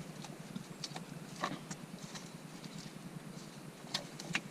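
A few light clicks and knocks of parts being handled during wiring work in a truck: one about a second and a half in, and two sharper ones near the end.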